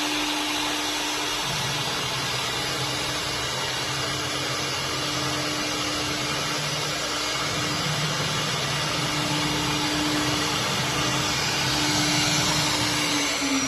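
CNC router running and cutting printed PVC sheet along its contour: a steady spindle whine over continuous machine noise, with the low hum shifting a little as the cut goes on.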